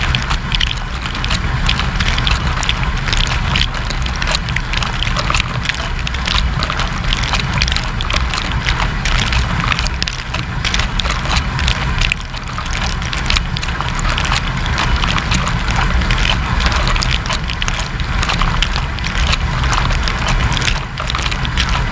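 AEG dishwasher running its wash, heard from inside the tub: water spraying and splashing continuously against the walls and dishes, over a steady low rumble from the machine.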